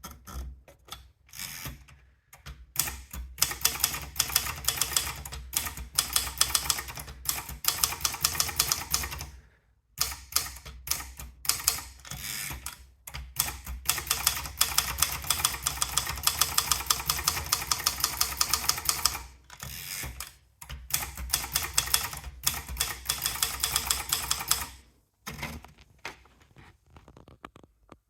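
Sperry Remington 10/30 typewriter being typed on: long runs of fast, sharp keystrokes with a steady low hum beneath, broken by a couple of brief pauses, thinning to a few quieter strikes near the end.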